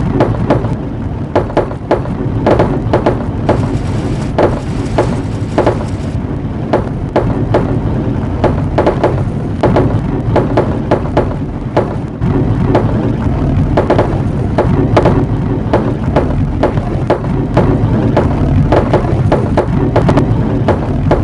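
Marbles rolling along a marble run, with a steady low rumble and a constant patter of sharp clicks and clacks as they hit the track and each other.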